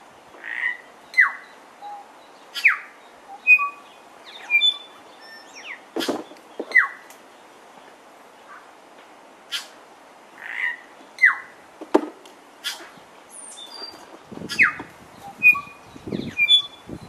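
New Zealand bellbird (korimako) singing: a varied phrase of short clear notes, quick falling slurs and sharp clicks, the phrase coming round again about ten seconds later.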